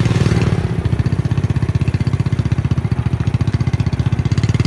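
Small motorcycle engine running steadily under way, with a rapid, even putter of firing pulses.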